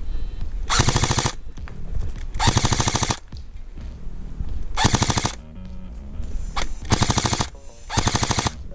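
Airsoft AK-pattern replica rifle firing on full auto: five short bursts, each about half a second of rapid, evenly spaced shots, with pauses between them.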